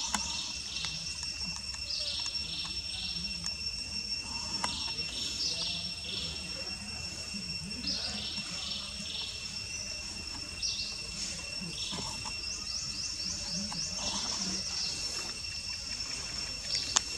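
Forest insects, crickets or cicadas, keep up a steady high-pitched drone, with birds chirping over it and one fast run of short chirps a little past the middle.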